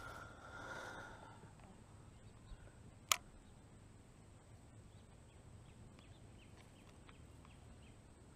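Quiet lakeside ambience with faint, short bird chirps, broken once about three seconds in by a single sharp click.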